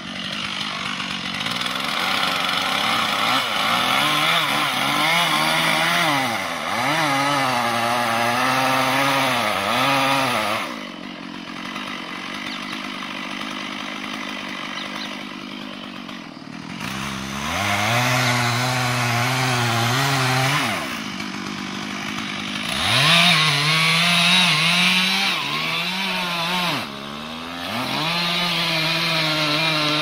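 Chainsaw felling a tree, revving up and down through three long cuts of several seconds each into the trunk, and dropping back to a lower idle between them.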